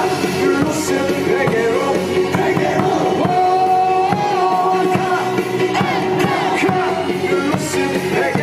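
Korean baseball cheer song for a foreign batter: loud, upbeat backing music with voices singing the chant along.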